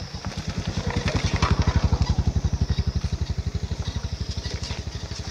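A small engine running with an even, low pulsing beat, getting louder over the first second and a half and then slowly fading.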